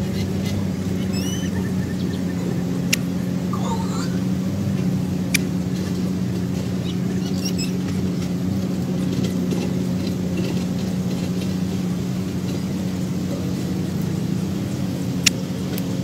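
A steady low mechanical hum, with a few faint, short bird chirps over it and three sharp clicks.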